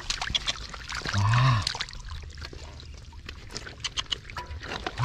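Irregular wet splashing and squelching in shallow muddy water, with a short exclamation from a man about a second in.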